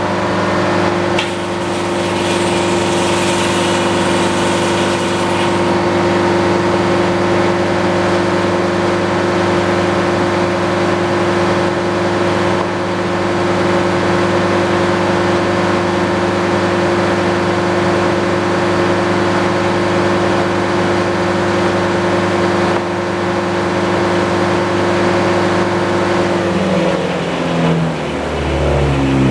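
Engine driving an antique circular sawmill, running at a steady speed with the blade spinning. Near the end its pitch wavers and drops.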